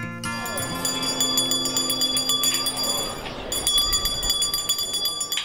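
A handbell rung over and over, its high ringing tones shaken on steadily, with crowd voices behind; guitar music fades out just at the start.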